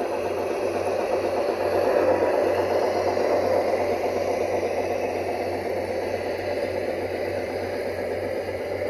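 Large-scale model freight train rolling past on garden-railway track: a steady rumble and rattle of its metal wheels on the rails.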